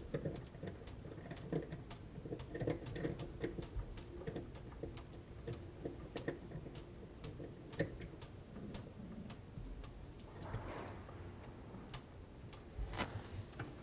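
Light, irregular clicks and small taps, a few a second, from plumbing fittings being handled and threaded together by hand as a valve block is reconnected to its water stop.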